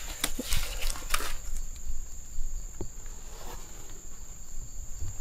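A steady, high-pitched insect trill of crickets or cicadas, with a few soft clicks and rustles of handling.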